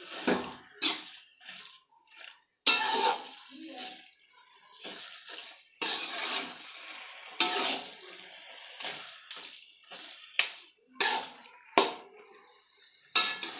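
Kitchen utensils clinking and scraping against a cooking pot: a spoon working the radish sabji in a series of separate strokes, a second or two apart.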